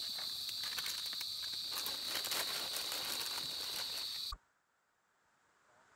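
Steady outdoor insect chorus, a continuous high-pitched trill with hiss and scattered faint clicks, cutting off abruptly a little over four seconds in, then near silence.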